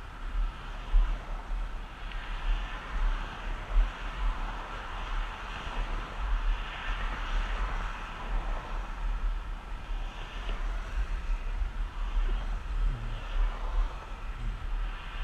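Wind buffeting the microphone of a moving rider, a pulsing low rumble, over a steady rush of road noise and passing cars that swells and fades.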